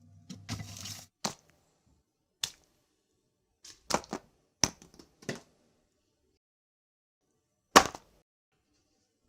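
A series of about nine short, sharp clicks and knocks at uneven intervals, with a brief rustling noise in the first second; the loudest knock comes near the end.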